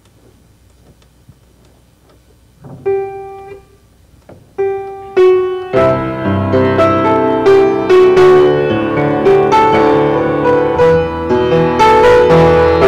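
Piano playing the introduction to a congregational song. After a quiet start, two single notes sound, then full chords play steadily from about halfway through.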